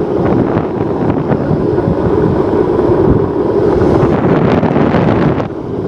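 Heavy wind rushing over the microphone on a fast downhill longboard run, over the steady roll of the board's wheels on highway asphalt. It dips briefly near the end.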